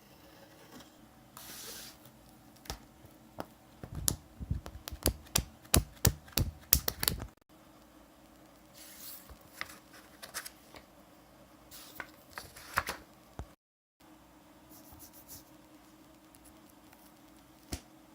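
A run of sharp clicks and knocks, densest and loudest a third of the way in, with a few short scraping, rustling sounds before and after.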